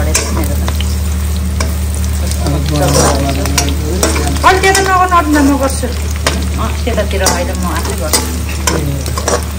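Meat and sliced onions sizzling in hot oil in an aluminium wok while a metal spatula stirs them, scraping and clinking against the pan over and over.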